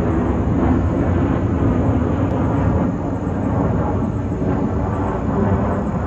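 Steady low rumble of jet airliners on approach to land.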